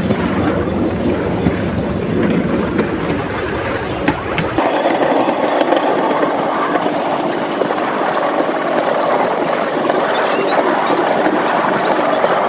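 A small open rail vehicle running along the track: a steady rumble of the ride and wind. About four and a half seconds in the sound changes abruptly to a thinner, hissing rattle without the deep rumble.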